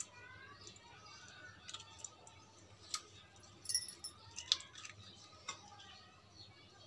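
A metal spoon scooping mango flesh and clicking against a glass bowl: a few faint, sharp clinks, one about three seconds in and a quick cluster a second later, then one more.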